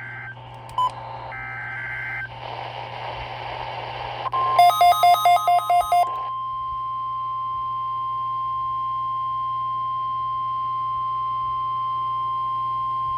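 Emergency Alert System weekly-test signal coming over a radio. It opens with short bursts of warbling two-tone data (the SAME digital header), then a couple of seconds of hiss. Next comes a rapid string of about seven loud beeps, and then a steady single-pitch attention tone near 1 kHz held for about nine seconds.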